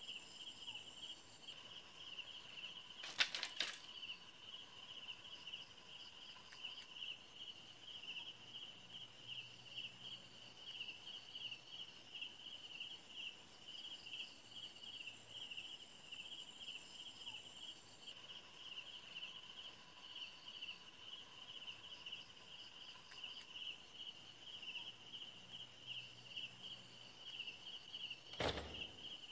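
Faint night ambience of crickets chirping: a steady, pulsing high trill. A brief knock or clatter comes about three seconds in.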